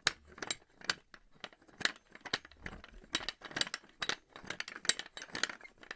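Metal pulley clattering: a string of irregular metallic clanks and rattles, several a second, with no steady rhythm.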